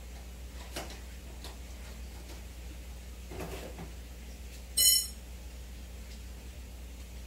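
Steady low hum of aquarium aeration, with a few faint scattered ticks. About five seconds in, a short, loud, high-pitched squeak.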